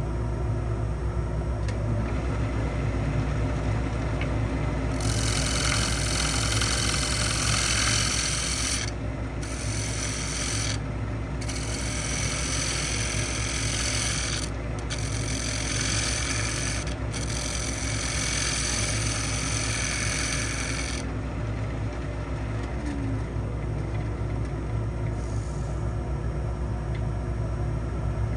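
Wood lathe running with a steady hum while a turning tool cuts the spinning pecan bowl. The hiss of wood being shaved starts about five seconds in and stops about twenty-one seconds in, broken by several short gaps.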